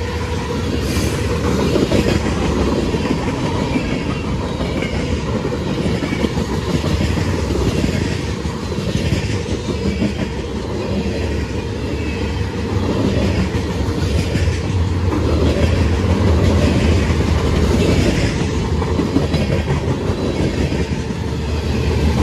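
CSX manifest freight train rolling steadily past, its steel wheels clacking over the rail joints with a continuous rumble.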